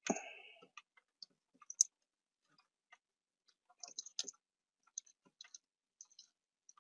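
Faint, sparse clicks and small plastic knocks from the Hyundai Accent's removed center-dash vent trim panel being handled as the wiring socket behind it is worked loose, after a short scraping rustle at the start.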